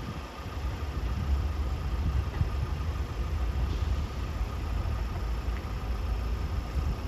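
An engine idling, heard as a steady low rumble, with a faint steady high tone above it.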